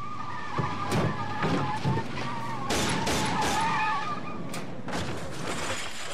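Pickup truck tyres squealing as the truck pulls away, over its engine, with a series of sharp bangs in the middle and toward the end.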